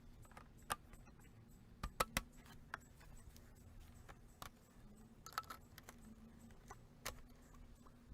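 Scattered sharp clicks and knocks of composite raised-bed boards and plastic snap-lock stacking brackets being handled and fitted together, with a quick cluster of three about two seconds in.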